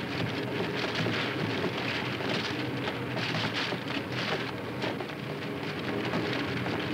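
Steady, rain-like hiss and patter of a shrimp-processing room, with the shrimp grading machine and conveyor running.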